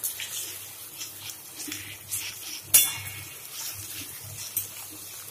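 Metal spatula scraping and stirring onions and garlic paste frying in oil in a kadai, over a steady sizzle. The scrapes come every half second or so, and the sharpest is about three seconds in.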